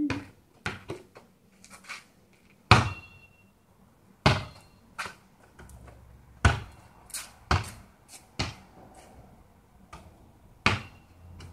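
A basketball bouncing and striking hard surfaces: a string of irregular thuds, the loudest about three seconds in with a short ring after it.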